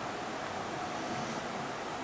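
Steady hiss of broadcast dead air or receiver noise, with a faint steady tone underneath.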